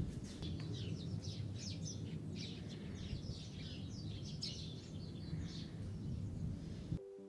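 Small birds chirping and twittering over a steady low outdoor rumble. Near the end the sound cuts off abruptly and piano music begins.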